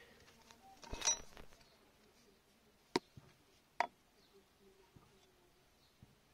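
A brief rustle, then two sharp metallic clicks just under a second apart, as a tool is handled against the brake disc and wheel hub.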